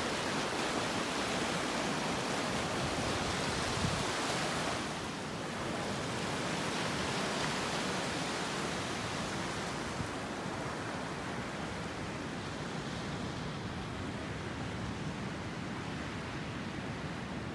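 Ocean surf washing around rocks in shallow water: a steady rush that drops a little about five seconds in.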